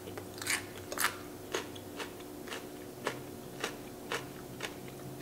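Close-miked chewing of a crisp raw green chili pepper, a crunch about twice a second in an even rhythm.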